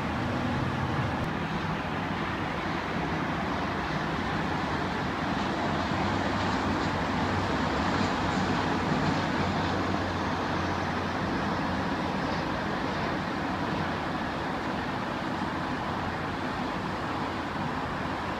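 Steady roar of freeway traffic mixed with the jet engines of a Boeing 737 airliner on final approach. The sound swells a little about halfway through, with a faint falling whine as the jet passes.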